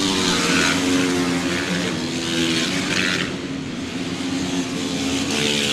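Supermoto race motorcycles running hard on a track, their engines revving up and down in pitch through the corners.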